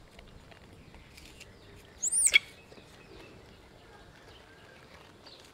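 A baby macaque gives one short, shrill squeal about two seconds in. The pitch flicks up and then drops steeply.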